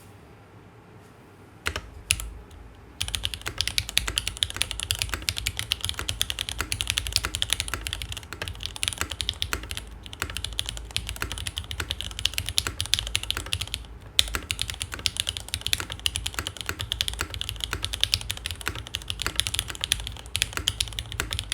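Fast continuous typing on a KMG TKL mechanical keyboard: lubed Cherry MX Black linear switches in an aluminium-plate, sandwich-mounted case with GMK keycaps. The sound is lower pitched but keeps each keypress clear. It starts with a few single key presses, and steady rapid typing begins about three seconds in.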